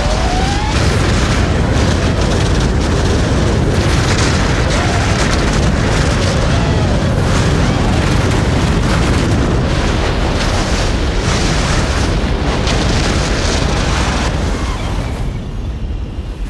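FPV drone's motors whining, the pitch rising and falling as it throttles, over a heavy rush of wind and skis carving and scraping the snow at high speed. Near the end the rushing thins out and drops in level.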